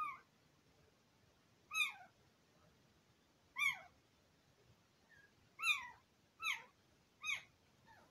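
Newborn Border Collie puppies crying: about six short, high-pitched squeals, each rising then falling in pitch, spaced a second or two apart and coming closer together near the end.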